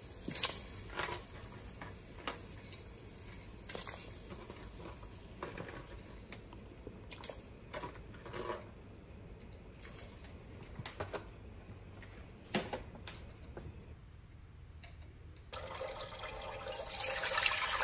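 Water with pork tails simmering in a stainless-steel pot, with scattered small pops and splashes every second or two. Near the end, after a short silence, water is poured from a bowl into a glass pot, a splashing pour that grows louder.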